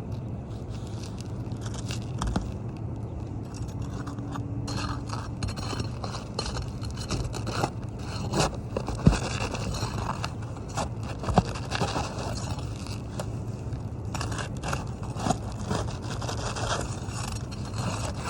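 Asphalt roofing shingle being worked loose and pulled out from under the course above: gritty scraping and crunching with irregular sharp knocks, the loudest about nine and eleven seconds in.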